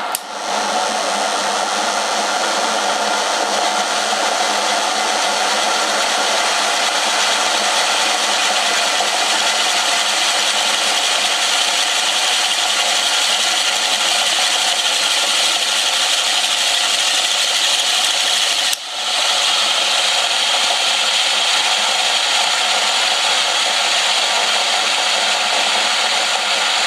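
Rotor from an old washing-machine motor spinning steadily in its ball bearings on a homemade AC test rig, a continuous whirring hum, briefly dropping out about two-thirds of the way through.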